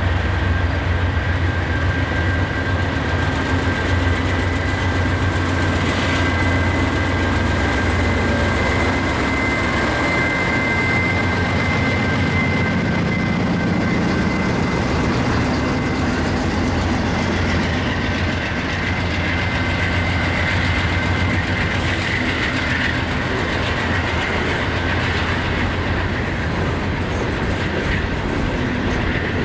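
Norfolk Southern diesel locomotives passing close by, with a deep engine rumble and a steady high whine that fades about three-quarters of the way through. Coal hopper cars then roll past, their wheels clattering over the rails.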